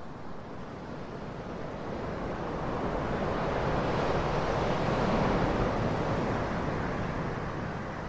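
Ocean surf: a single wave swell rising to a peak a little past the middle and then easing off.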